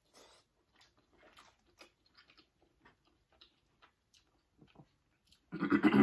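Close-miked chewing of prawn meat: faint wet mouth clicks and smacks. About five and a half seconds in, a brief loud vocal sound cuts in, far louder than the chewing.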